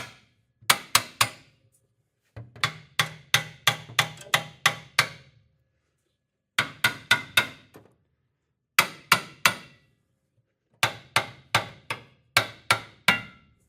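Hammer blows on metal in five quick bursts of several strikes each, about four or five strikes a second with short pauses between the bursts: a stuck part being driven out during transmission removal.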